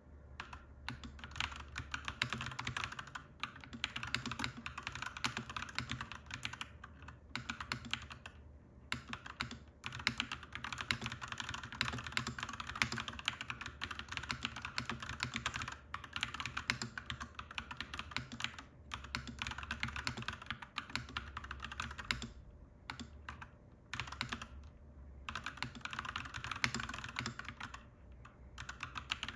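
Clacky mechanical keyboard typing in fast runs of keystrokes, broken by a few brief pauses, over a steady low hum.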